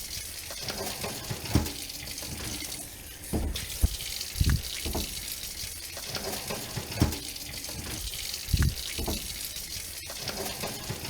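Steady rush of running water, with a few dull knocks scattered through it.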